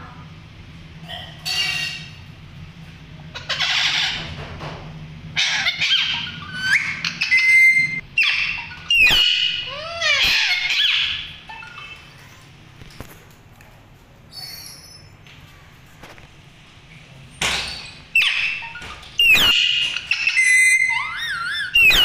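Two Alexandrine parakeets calling in loud, shrill bursts of squawks and gliding calls, with a quieter lull in the middle before they start again.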